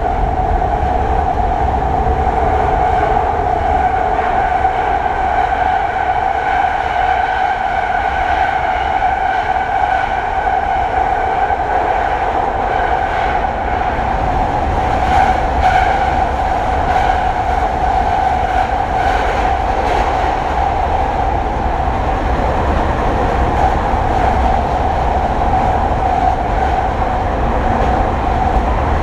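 Running noise of a JR E721-1000 series electric train heard from inside the car as it travels through a long rail tunnel: a loud, steady roar with a strong droning tone. A few rail-joint clicks come through around the middle.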